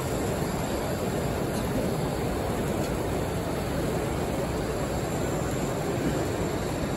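Steady background noise of a crowded hall: an indistinct murmur of many people, with no single sound standing out.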